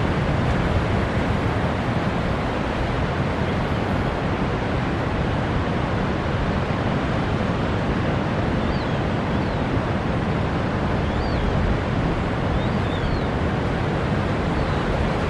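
Steady noise of surf and wind at the estuary mouth. A few faint, short, high bird chirps come in the second half.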